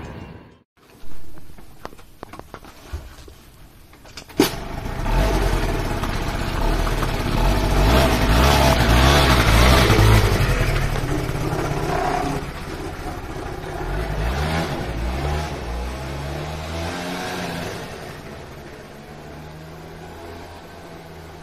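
Honda Dio scooter engine starting about four seconds in after a click, then revving up and down with rising and falling pitch, and settling to a steadier, quieter run near the end.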